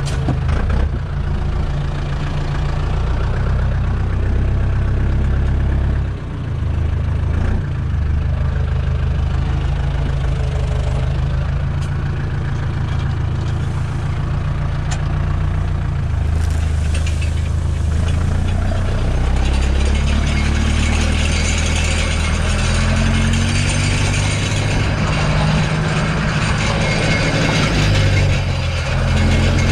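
Fendt 308 LSA tractor's diesel engine running steadily while pulling a meadow harrow, heard from inside the cab. The engine note dips briefly about six seconds in and shifts in pitch later, and a mechanical rattle grows louder over the second half.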